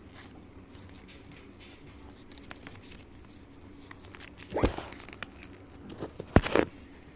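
Origami paper being folded and creased by hand: faint rustling, then louder crinkling scrapes about halfway through, and a sharp tap and more scrapes near the end.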